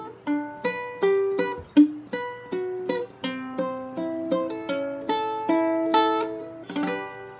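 Background music: a plucked string instrument picking a quick melody, each note ringing and dying away, ending on a final strummed chord that fades out.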